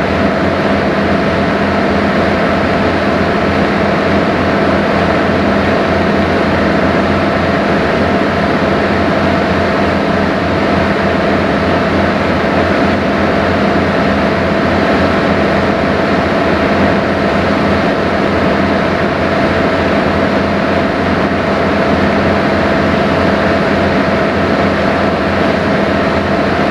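Sightseeing boat under way, its engine running at a steady cruise: an even drone with a constant hum, mixed with the rush of water along the hull.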